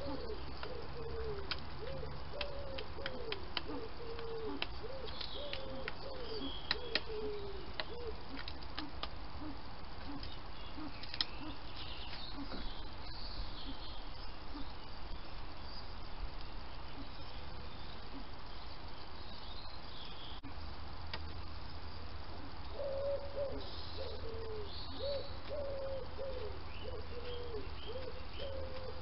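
Birds calling: runs of short, soft, low notes, each dropping in pitch, a couple a second, through the first third and again near the end. Fainter high chirps from small birds come and go, and a few sharp ticks fall about six to seven seconds in.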